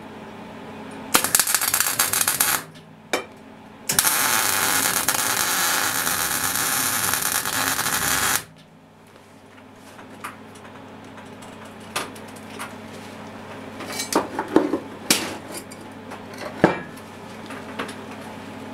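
MIG welder arc crackling on a square steel tube: a burst of about a second and a half, a brief blip, then a steady run of about four and a half seconds that cuts off suddenly. Scattered clicks and knocks follow.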